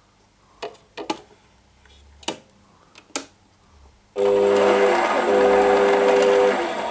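A few clicks as the controls of a 7x14 mini lathe are set, then about four seconds in its motor and spindle start with a sudden loud whining run with steady tones, and after a couple of seconds it is switched off and winds down. The running noise comes mainly from the lathe's plastic gears.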